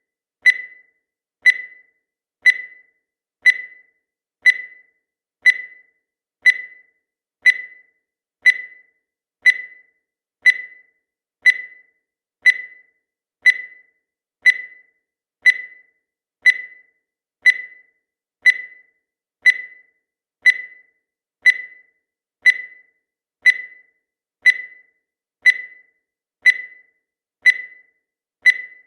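Countdown timer sound effect: a short, high beep once every second, each dying away quickly, in an even steady rhythm.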